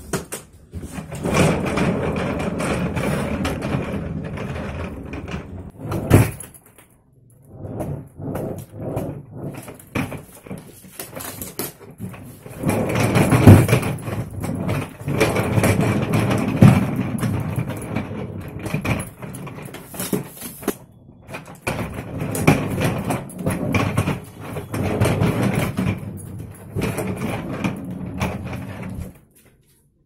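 American Tourister Kamiliant hard-shell suitcase rolling on its single 360° spinner wheels across a tiled floor, a continuous rumble in long stretches with a short stop, and a few sharp knocks as it is pushed and turned.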